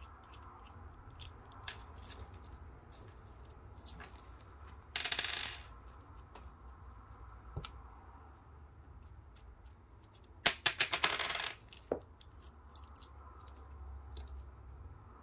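Small metal multimeter test-lead accessories (alligator clips and probe tips) clicking and clinking as they are handled. There are light clicks throughout, a brief rustling burst about five seconds in, and a louder metallic clatter of many quick clinks about ten and a half seconds in.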